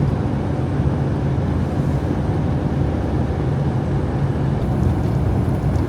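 Truck driving at highway speed: a steady low drone of its diesel engine and road noise.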